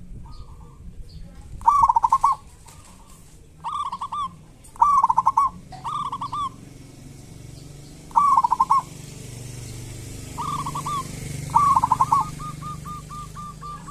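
Zebra dove (perkutut) calling: about seven short bursts of fast repeated notes, then near the end a run of short, evenly spaced notes.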